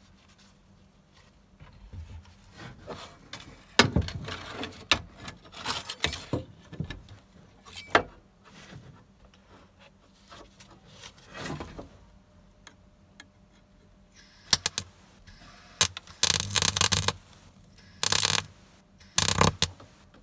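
Steel repair panel and tools handled with knocks, clicks and scrapes, then a MIG welder tacking the patch onto the car's cross member: three short crackling bursts of arc, about a second apart, near the end.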